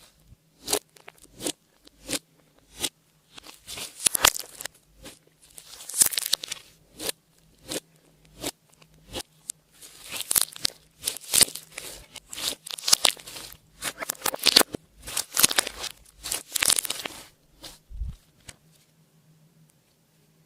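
Slime being squeezed and stretched by hand, with sharp sticky clicks and crackly pops in quick runs that die away near the end.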